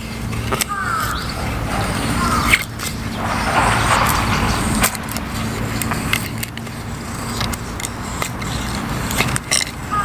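Knife splitting thin kindling sticks: several sharp wooden cracks, the loudest about two and a half seconds in, over a steady hum of distant road traffic.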